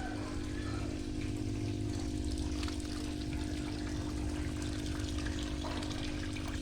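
Water trickling and splashing over the steady hum of a running water pump.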